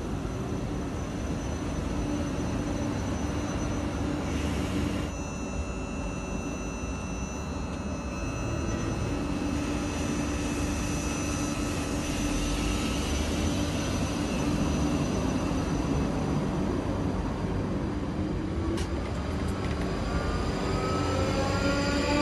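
Class 458 Juniper electric multiple unit pulling out of a station, its traction motors whining in steady tones over the rumble of the train. Near the end the whine begins rising in pitch as the train picks up speed.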